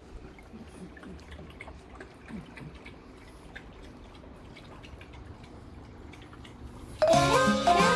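French bulldog lapping water from a bowl: faint, irregular wet licking clicks. Upbeat music starts loudly about seven seconds in.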